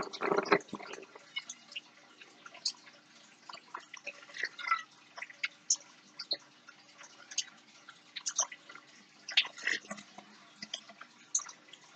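Faint scattered light clicks and small rustles of fingers wrapping thread around a glued paperclip earring, with a louder rustle at the very start and a faint steady hum underneath.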